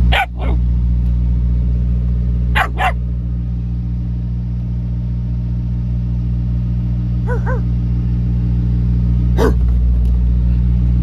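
A semi-truck's diesel engine idling with a steady low hum, while a German Shepherd puppy gives several short, high yips, two of them close together about seven seconds in.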